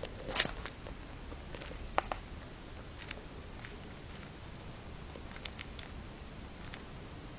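A budgie's beak biting and tearing a leaf: scattered sharp clicks and small crackles, the loudest about half a second in and another at about two seconds, with fainter nibbles after.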